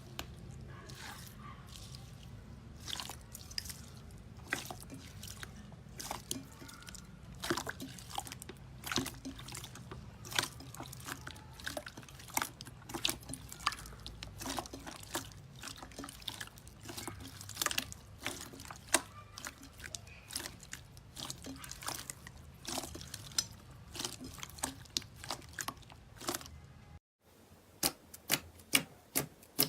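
Slime being squished and pressed, making irregular wet clicks and pops several times a second. There is a short break near the end.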